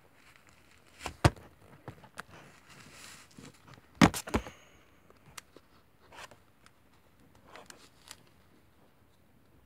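Handling noises as a toy doll is moved about and set down: scattered small clicks and rustles, with two sharp knocks, one about a second in and a louder one about four seconds in.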